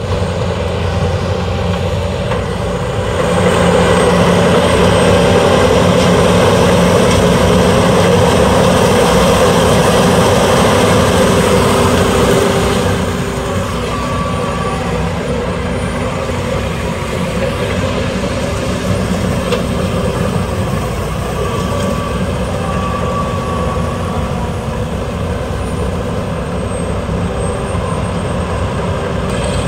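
A Case IH sugarcane harvester and a New Holland 3630 tractor run together with a steady heavy diesel drone while the harvester works. The sound swells a few seconds in and drops back a little about halfway through.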